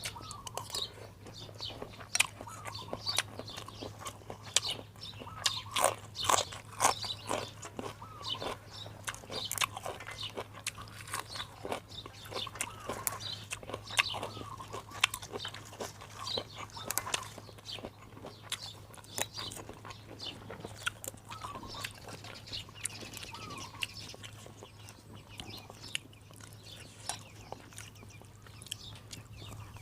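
Close-up eating sounds of beef noodle soup: irregular slurps, chewing and crunching, over a steady low hum.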